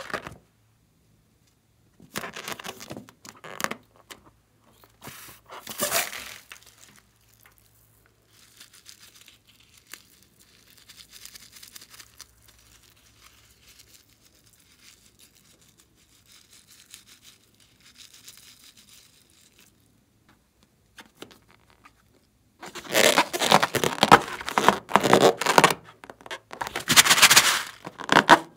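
Rubber balloons filled with slime being squeezed and handled, making crinkling, rubbing crackles in short bursts. Soft, faint squishing runs through the middle as slime is pressed out of a balloon into a glass bowl. The loudest stretch of crackling handling comes near the end.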